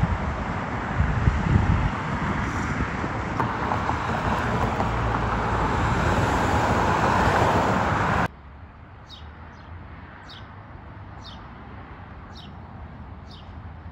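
Car traffic on a city road, its noise swelling as vehicles pass close, then cut off abruptly. In the quieter ambience that follows, a bird repeats a short falling chirp five times, about once a second.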